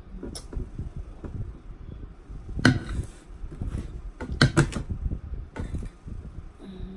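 Close-up eating sounds with a steady low rumble, broken by sharp knocks of a glass salad bowl against a plate: one about two and a half seconds in and a quick cluster of knocks just before the five-second mark as the bowl is moved and set down.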